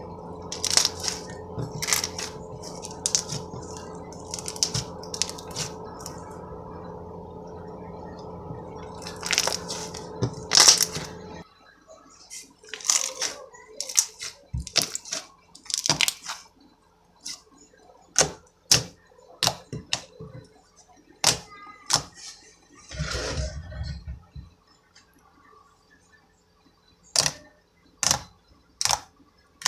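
Slime being squished and poked, making a series of sharp wet clicks and pops. A steady hum runs underneath and cuts off suddenly about a third of the way in.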